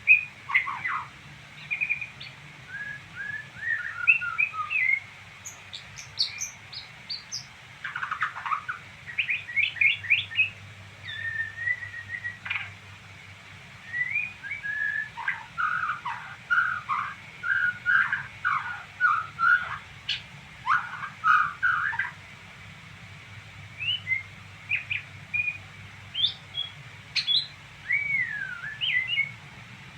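A songbird twittering: quick runs of short chirps, slides and trills, with a brief lull about three-quarters of the way through.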